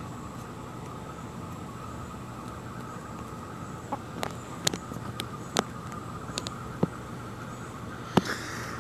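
Chickens pecking tortilla pieces off pavement: a scattering of sharp beak taps, starting about four seconds in and coming irregularly, over a steady background hiss.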